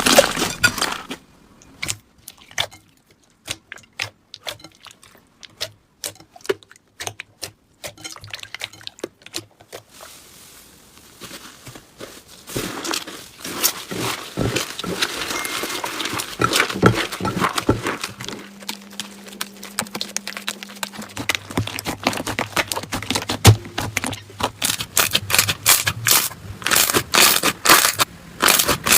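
Slime being pressed and squeezed by hand, giving off quick crackling clicks and pops. The clicks are sparse for the first several seconds and grow dense and loud in the last few seconds.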